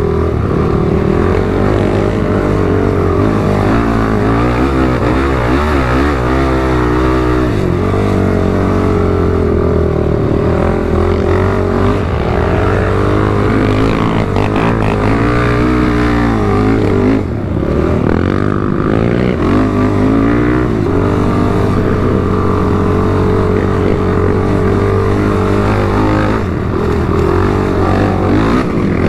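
ATV engine running hard while riding, its pitch rising and falling twice as the throttle is worked.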